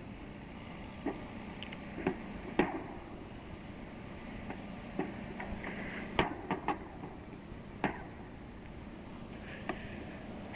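Scattered sharp cracks and pops from a night attack, distant blasts as an ammo dump explodes and mortar or grenade-launcher fire continues, about eight in all with the loudest about six seconds in. Heard over steady tape hiss and a low mains hum.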